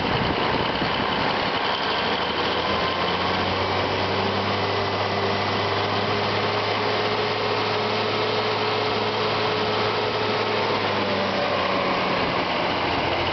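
Versatile 835 four-wheel-drive tractor's Cummins 855 six-cylinder diesel engine idling steadily.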